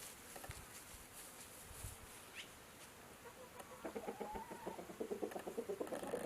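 Hens clucking faintly, with a quick run of clucks building up over the last couple of seconds.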